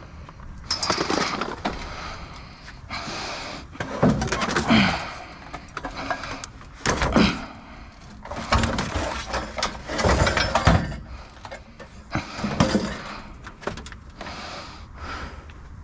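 Scrap items being shifted and loaded into a vehicle: irregular clanks, knocks and scrapes.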